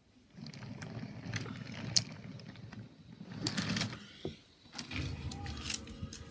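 Toy subway train rolling out along its track: a low rumble with scattered clicks and knocks, starting about half a second in and easing briefly around four seconds before picking up again.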